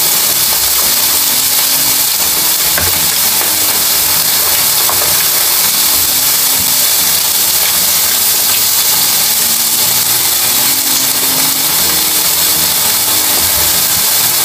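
Steady, loud sizzling hiss of food cooking on a hot electric grill and in a pan, with a few faint spoon clicks.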